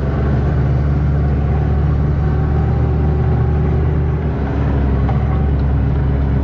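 Steady low mechanical drone of an engine running at constant speed, with an even pitched hum and no rise or fall.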